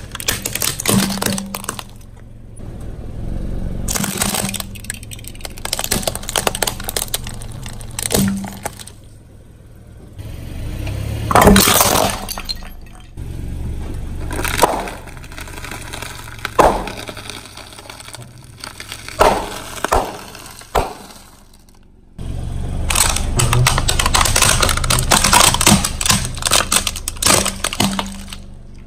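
A car tyre rolls over and crushes plastic toys and sealed snack bags: repeated cracking, snapping and crunching in several bouts, with one loudest crack a little before the middle. A low rumble from the car runs beneath.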